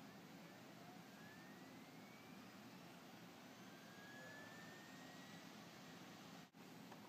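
Near silence: faint steady hum and hiss, with faint slowly rising whines like a DVD drive spinning up.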